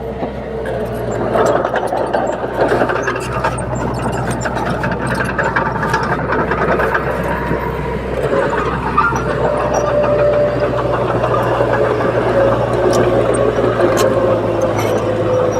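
Komatsu D30P bulldozer's diesel engine running steadily under work, with clanking and clicking over the engine note. A whining tone steps up in pitch about nine seconds in.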